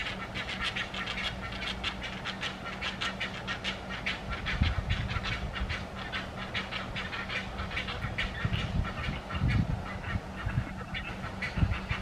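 Great egret nestlings begging at feeding time: a rapid, steady run of dry ticking calls, about seven a second. A few low thumps sound underneath.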